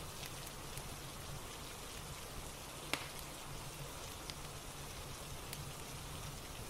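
Steady rain with scattered sharp crackles from a fireplace, one louder crackle about three seconds in.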